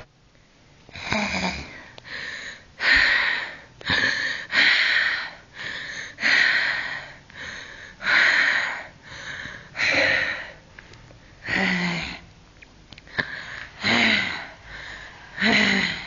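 A person panting heavily close to the microphone: loud in-and-out breaths about once a second, some with a little voice in them.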